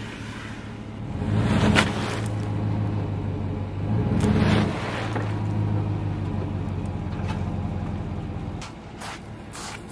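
Pickup truck engine revving up twice under load, about a second in and again around four seconds, as the truck reverses up onto driftwood logs. It then runs steadily and falls quieter near the end.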